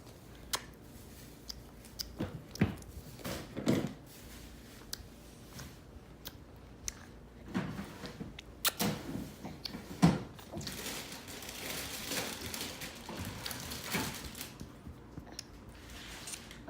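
Cora making her clicking sound with her mouth: sharp clicks at irregular intervals, with some softer rustling and breathy noises between them.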